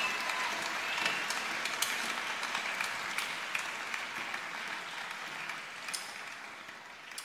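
Audience applause, a dense patter of many hands clapping that gradually thins and dies away.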